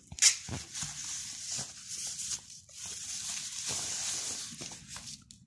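Rustling and crinkling of white packaging wrap being handled and pulled off a boxed Bluetooth speaker, with a sharp crackle about a quarter second in and irregular crackles throughout.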